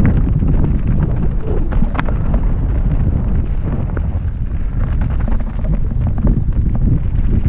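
Mountain bike riding fast down a rocky gravel trail: a heavy wind rumble on the helmet-mounted microphone, with a constant clatter of tyres, loose stones and bike parts over the rough ground and a sharper knock about two seconds in.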